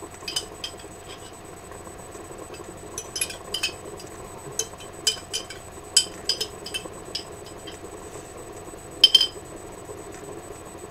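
Glass alfredo sauce jar held upside down over a skillet and shaken and tapped to empty the last of the thin sauce: irregular light glassy clinks, the loudest about nine seconds in, over a steady low hum.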